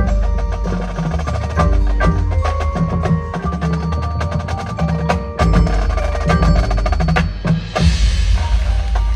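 Marching band playing its field show: drums and mallet percussion strike rapidly over held low bass notes and pitched melodic lines. A hissing wash of sound rises about eight seconds in.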